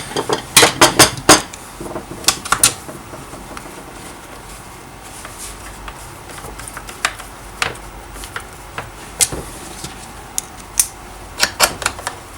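Sharp metallic clicks and clinks of tools and chainsaw parts being handled on a workbench: a quick run of them in the first second and a half, then scattered single taps, with another short cluster near the end.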